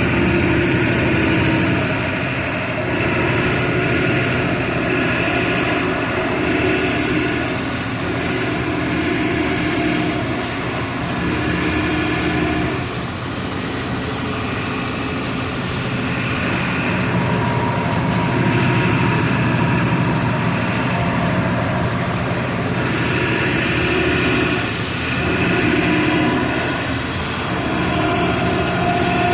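Diesel engine of a Volksbus 17-230 EOD city bus running under way, its note and loudness rising and falling several times as the throttle and gears change.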